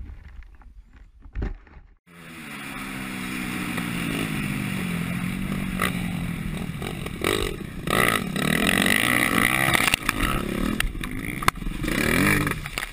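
Dirt bike engine running hard on a motocross track, heard from the rider's helmet camera: the pitch falls and rises with the throttle and gear changes, with wind rushing on the microphone. Near the end the engine revs up and the bike splashes into water.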